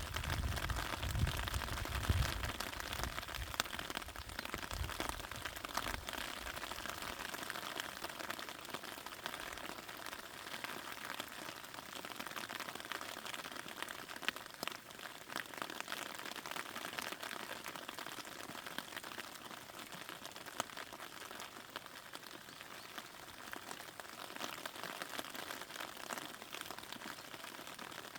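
Rain falling on a raspberry patch: a steady hiss of rainfall dotted with many small drop ticks on the leaves, with a low rumble during the first few seconds.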